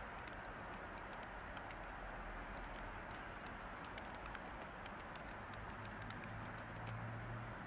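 Steady white-noise hiss with light, irregular computer keyboard keystrokes ticking over it. A faint low hum comes in over the last couple of seconds.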